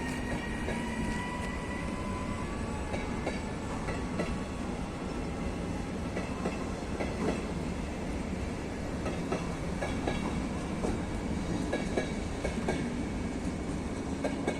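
Electric-hauled passenger train rolling past, its wheels clicking irregularly over the rail joints. For about the first two seconds an electric locomotive's whine, slightly rising in pitch, sounds over the running noise.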